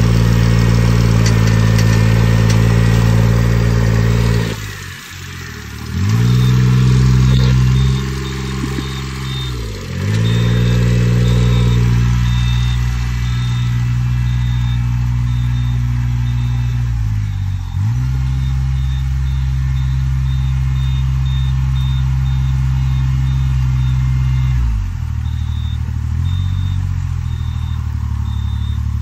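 Engine of a Kubota riding rice transplanter running steadily. Its pitch sags and picks up again about five seconds in and around ten seconds in, as the machine turns at the end of a row, with smaller dips twice later.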